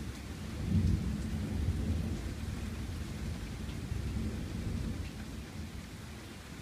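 Rolling thunder from a nearby lightning storm, loudest about a second in and then slowly fading, over the steady hiss of rain falling.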